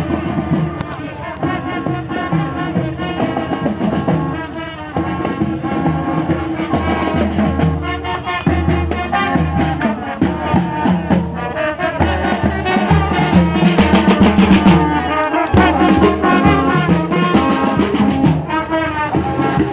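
Marching drum band playing: brass, including sousaphones, over marching drums keeping a steady beat.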